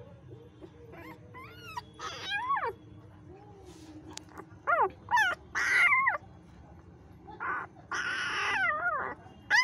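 Newborn puppies crying while being handled: groups of short, high-pitched squeals that bend up and down in pitch, about a second in, around five seconds in, and again near the end.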